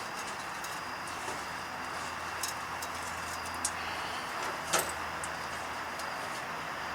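Steady background hiss and low hum with several short, sharp clicks and knocks, the loudest about two-thirds of the way through, typical of hand-tool work on the truck.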